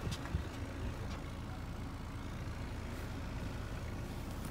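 Car engine idling steadily, a low rumble, with a few faint knocks of things being handled in the trunk.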